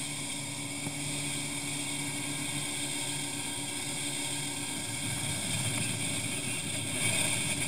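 A small boat's engine running steadily at cruising speed, with the rush of water and wake against the hull; the drone grows a little louder near the end.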